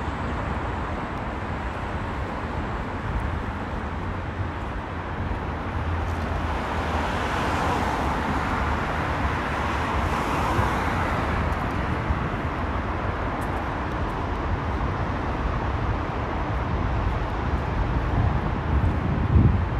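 Street traffic noise, with a vehicle passing in the middle that swells and fades. A short low rumble comes near the end.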